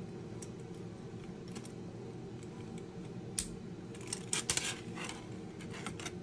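Hard 3D-printed plastic parts clicking and tapping as they are handled and pressed together by hand: a sharp click about three and a half seconds in, then a quick run of clicks around four and a half seconds. A steady low hum runs underneath.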